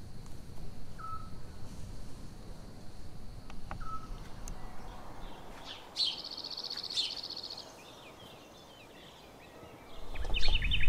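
Outdoor night ambience: a single short whistled note repeats about every three seconds over a steady high insect trill. After about six seconds comes a fast pulsed chirping trill, and near the end birds chirp.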